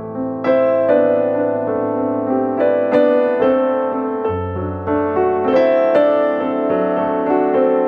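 Background music: a gentle piano piece, with notes struck in sequence over sustained low bass notes.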